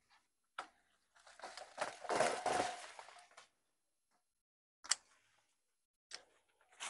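Hand pruning shears snipping grapevine shoots: sharp single snips about half a second in, near five seconds, and twice near the end. Between them, about a second in, leaves and cut stems rustle for about two seconds.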